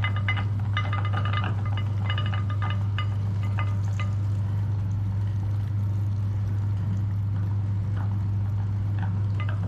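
Meat grinder motor running with a steady low hum while slime is pushed through it, with bursts of wet clicking and crackling in the first few seconds and again near the end.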